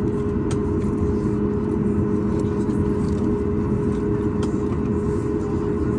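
Boeing 737 jet engines and cabin heard from inside the cabin while taxiing, a steady low hum with two constant tones. A few faint clicks or rattles come through now and then.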